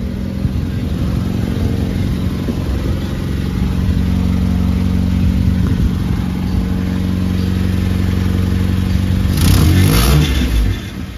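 Nissan Sentra engine running on a replacement fuel pump, briefly revved near the end. It carries a clattering that the mechanic puts down to an exhaust leak.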